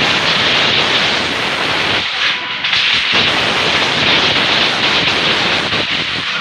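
Many firecrackers and fireworks going off at once in a loud, unbroken crackle of overlapping bangs, the sound of New Year's midnight celebrations.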